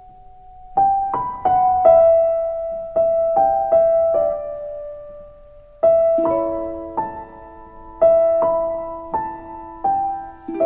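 Background music: a slow, gentle solo piano melody, single notes struck one after another and left to ring. A lower sustained note joins beneath the melody about six seconds in.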